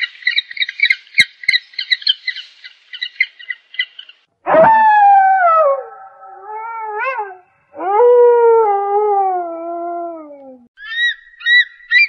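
Grey wolf howling twice, each long howl sliding down in pitch, the second deeper than the first. Before the howls comes a fast run of short, high-pitched chattering calls. Near the end there is a series of short, high-pitched eagle cries.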